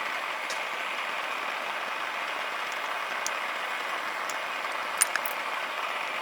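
Steady rushing hiss of a gas burner heating iron hinges, with a few faint sharp ticks; the sound cuts off suddenly at the end.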